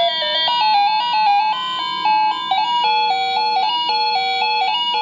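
Cheap wireless doorbell receiver playing one of its built-in electronic chime melodies: a fast tune of short, steady electronic notes that step up and down in pitch several times a second.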